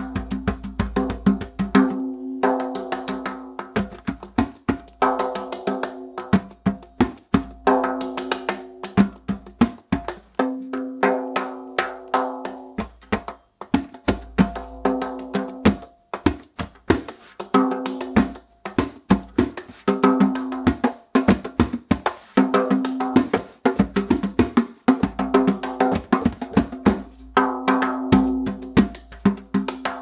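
Hand drum with a Remo Fiberskyn head played with bare hands: quick runs of strokes and slaps, each leaving a ringing tone on the head.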